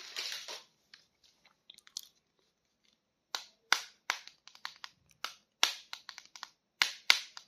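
A plastic action figure handled in the hands: a short rustle at the start, then from about three seconds in a run of sharp, irregular plastic clicks and crackles.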